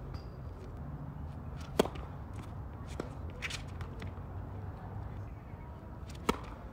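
Tennis balls struck by rackets on a hard court: a sharp pock about two seconds in, fainter hits from the far end in the middle, and another sharp strike near the end as a serve is hit.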